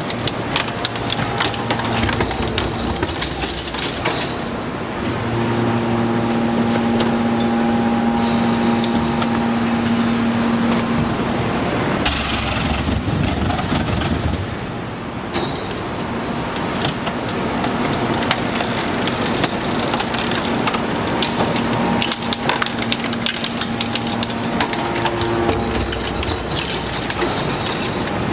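Hydraulic scrap metal shear baler running: the hydraulic pump's steady whining hum strengthens for stretches as it comes under load, over continual cracking and creaking of scrap metal being pressed.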